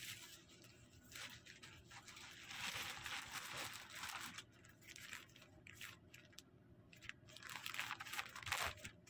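Plastic packaging bags crinkling and rustling as they are handled and opened, in bursts of crackle, loudest about three seconds in and again near the end.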